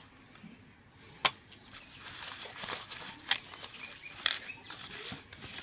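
A hand rubbing oil over a banana leaf in a frying pan, the leaf rustling under the palm. Three sharp clicks cut through it: one about a second in, one past the middle, one near the end.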